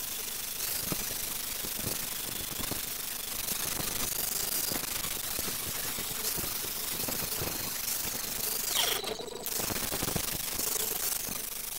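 Angle grinder grinding the metal hub of an old wooden cart wheel, a steady harsh grinding that breaks off briefly about nine seconds in before resuming.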